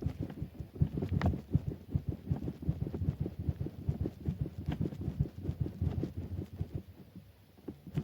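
Quick, irregular run of soft, dull thumps from feet or a body bouncing on a bed piled with two mattresses and a cotton comforter, with a few sharper creaks from the squeaky bed. The thumps thin out near the end.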